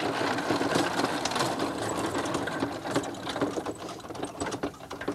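Escalera electric stair-climbing hand truck loaded with a copier, rolled across asphalt: a dense, continuous clattering rattle from its wheels and load, easing off over the last couple of seconds.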